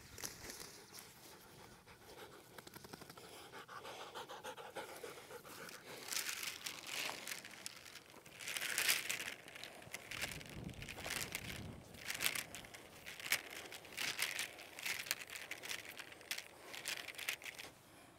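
Faint, irregular rustling and scuffing of plastic drip tubing being unrolled from its coil and pressed down, with footsteps in loose sandy soil. The noises get denser from about six seconds in.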